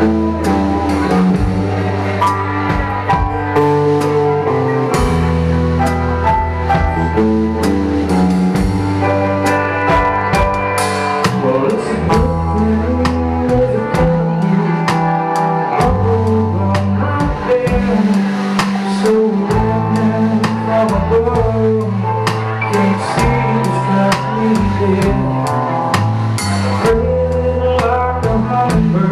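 A live band playing a song, led by a Ludwig Downbeat drum kit with Zildjian cymbals keeping a steady beat over a low bass line and guitar.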